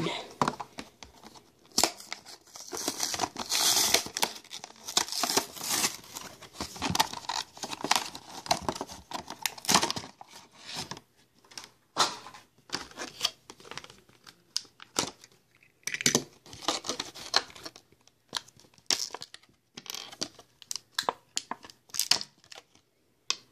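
Plastic blister packaging and its cardboard backing being torn open and crinkled to free a diecast toy car: irregular scratchy tearing and crackling in stop-start bursts.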